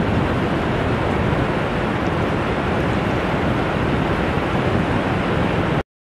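Steady rushing wash of ocean surf on a beach, which cuts off abruptly into silence near the end.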